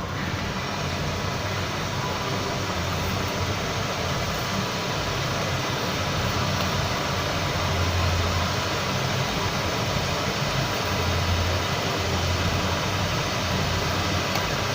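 Electric kettle heating water: a steady rushing hiss over a low rumble that swells now and then.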